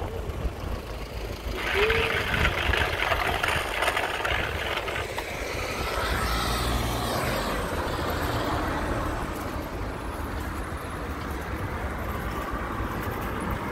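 Wind buffeting the microphone of a moving bicycle, with tyre and road noise; a louder, rattly rush comes in about a second and a half in, as over a rougher surface.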